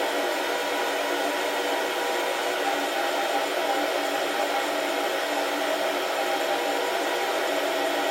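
Beanbon home coffee roaster running: a steady blowing fan whir with a faint hum of a few steady tones, even and unchanging, with no cracking of the beans heard.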